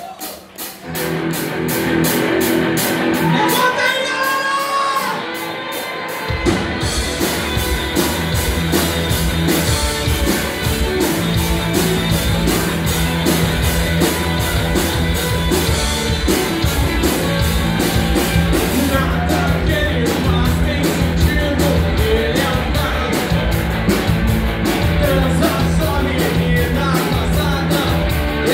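Live rock band playing: a guitar intro over a ticking hi-hat, then bass and full drum kit come in about six seconds in, with sung and shouted vocals over the electric guitars.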